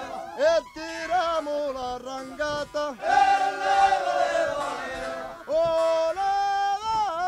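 A male voice singing, with long held notes that waver slightly and slides between them, broken by short pauses.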